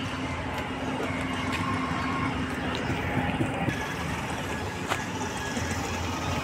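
A vehicle engine running steadily with a constant low hum, amid outdoor street noise and a few faint clicks.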